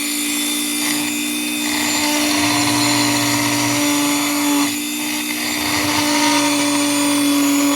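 Dremel rotary tool running at a steady high speed with a constant whine, grinding a deeper screwdriver slot into the head of a stripped Allen screw. The grinding noise eases briefly about a second in and again near the middle as the cut lets up.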